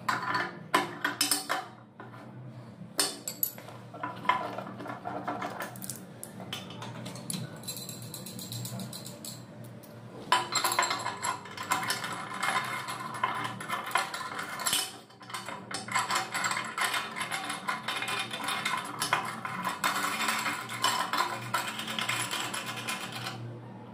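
Metal clinking and rattling as tap fittings and a flexible supply hose are handled and worked under a washbasin. It starts as a few sharp clicks and turns into dense, continuous clatter about halfway through.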